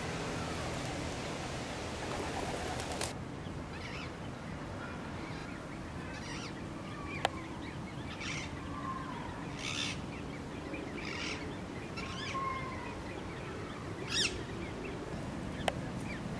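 Great crested grebe chicks piping: short, high-pitched calls repeated every second or two over a steady background hiss. A steady low layer cuts off suddenly about three seconds in.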